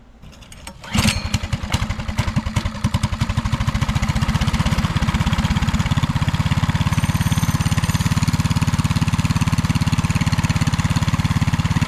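Predator 224 single-cylinder four-stroke engine on a hardtail mini bike starting up about a second in, then running at a steady idle on its first test run after the build.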